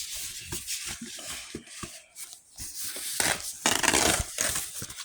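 Rustling and scraping of packaging being handled, with scattered light knocks; it is loudest and noisiest from about three to four and a half seconds in.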